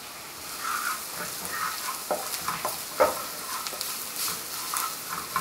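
Onion, garlic and spices sizzling in a frying pan while a spatula stirs and scrapes them round, in repeated strokes against the pan, the sizzle swelling about half a second in and a sharp knock of the spatula about three seconds in.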